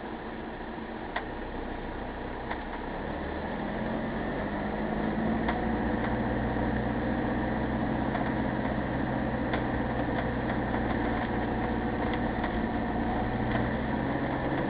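Vehicle engine running as it moves slowly, heard from inside the cabin, growing louder about three to four seconds in as it pulls forward, with a few faint clicks.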